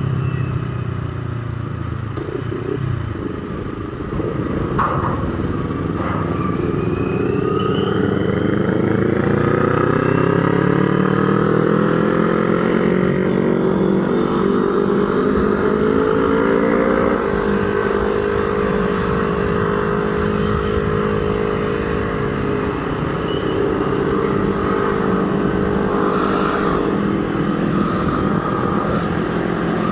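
CFMOTO NK400 motorcycle engine heard from the rider's seat, pulling up through the revs about four seconds in and then holding a steady cruise. Road and wind noise run underneath.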